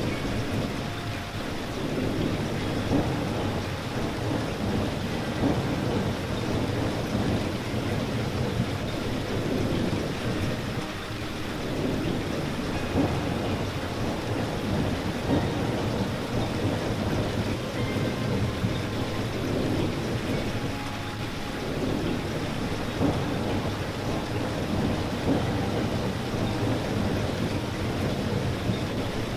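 Steady, dense rain falling, its sound heaviest in the deep range, gently swelling and easing.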